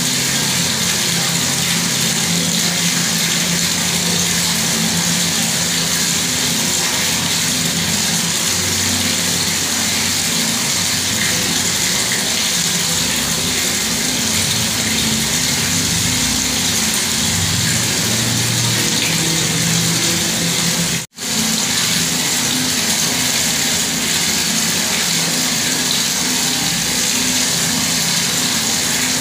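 Bathroom tap running steadily, water pouring and splashing in an even rush. It cuts out for a split second about two-thirds of the way through.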